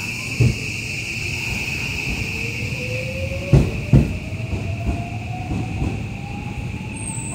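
JR West 323 series electric train pulling away, its traction motor whine rising steadily in pitch as it accelerates. Heavy clacks of the wheels over rail joints, two close together about halfway through.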